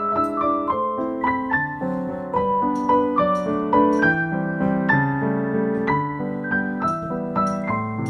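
Background piano music: a gentle melody of separate notes over lower chords, played at a steady pace.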